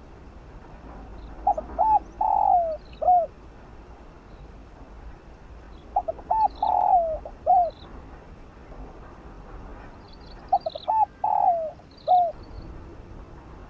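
Spotted dove cooing: three phrases about four to five seconds apart, each a couple of short notes, a longer falling coo and a short closing note. Faint high chirps from small birds lie behind it.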